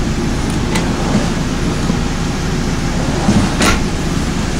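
Steady low rumble of the RV's air conditioner running, with two short knocks from wooden cabinet drawers being opened and shut, one under a second in and another near the end.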